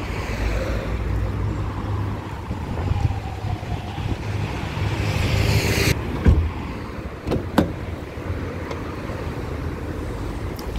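Steady outdoor traffic rumble, then a car door shutting with a single thump about six seconds in, followed by a couple of small clicks.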